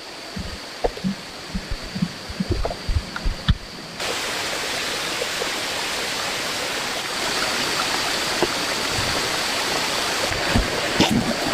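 Several dull knocks over a quiet background, then about four seconds in an abrupt switch to a steady rushing of running water, with a thin steady high tone above it.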